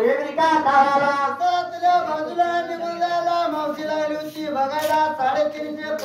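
Men's voices singing a Dhangari ovi, a Dhangar devotional folk song, drawing out long held notes.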